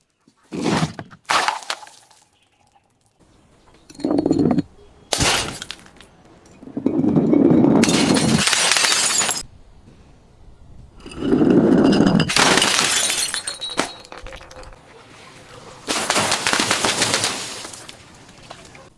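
Glass bottles breaking: a few sharp smashes and cracks in the first five seconds, then three long stretches of crunching and grinding glass with short pauses between.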